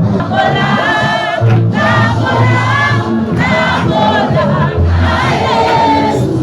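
A choir singing a gospel song in several voices, with wavering held notes, over instrumental accompaniment with held bass notes.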